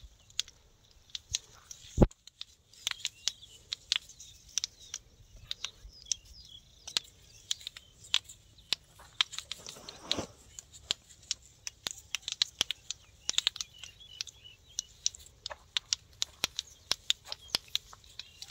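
Marigold flower heads snapped off their stems by hand: an irregular run of sharp snaps, several a second, the loudest about two seconds in. Birds chirp faintly behind.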